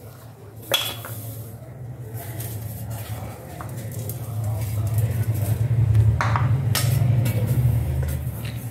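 Steel mixer-grinder jar knocked and scraped as coarsely ground peanuts are emptied from it into a bowl, with a sharp knock near the start and two more a little past the middle, over a steady low hum.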